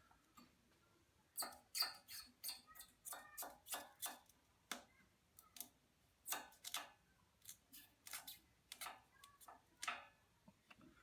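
A run of light, irregular sharp clicks and snips from hand-tool work, two or three a second, starting about a second and a half in.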